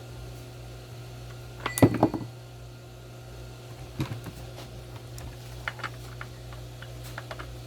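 Handling noises from a chainsaw being taken apart: a clatter of knocks about two seconds in, then scattered light clicks of metal and plastic parts, over a steady low hum.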